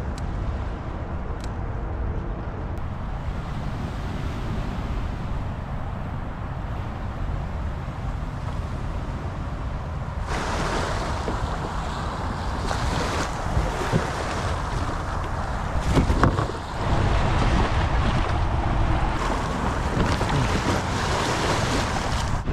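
Wind buffeting the microphone over sea water washing and splashing; the noise gets brighter and louder about ten seconds in.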